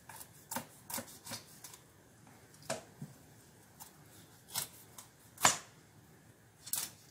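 Kitchen knife cutting up a raw whole chicken on a plastic cutting board: irregular sharp knocks of the blade striking the board, the loudest about five and a half seconds in.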